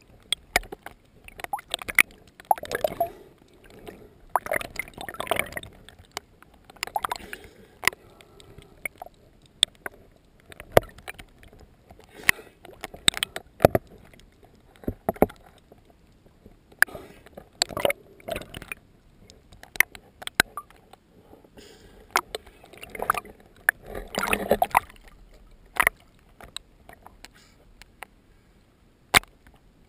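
Water splashing and sloshing around a small boat under way, in irregular bursts every second or two, with sharp knocks and clicks scattered between them.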